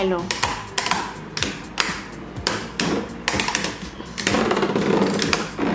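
Two Infinity Nado metal spinning tops clashing in a plastic stadium: repeated sharp clacks as their rims strike each other, about two or three a second. From about four seconds in, the hits run together into a denser, continuous rattle as the tops grind against each other.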